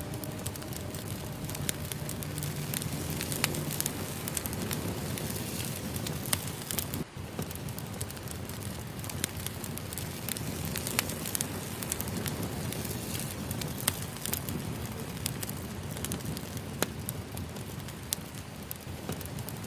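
Wood fire burning: a steady hiss of flames with frequent sharp crackles and pops from the burning logs. Soft sustained music notes fade out in the first few seconds.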